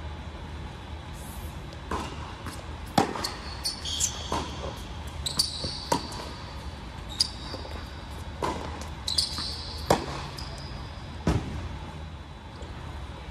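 Tennis rally on an indoor hard court: sharp racket-on-ball strikes and ball bounces about every one to one and a half seconds, with short high shoe squeaks on the court between shots. The hitting stops about two seconds before the end.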